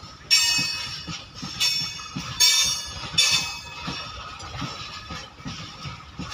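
Loaded freight train of open-top wagons rolling past, its wheels knocking over the rail joints above a low rumble. Four sharp, high-pitched metallic rings from the wheels on the rails come in the first three and a half seconds, each fading within about half a second.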